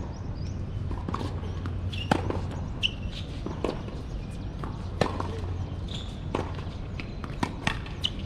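Tennis rally on a hard court: sharp racket strikes and ball bounces every second or so, the loudest about two and five seconds in, over a steady low hum.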